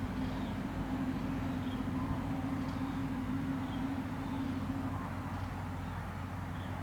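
Steady low engine rumble with a droning hum that eases off past the middle, and faint short bird calls above it about once a second.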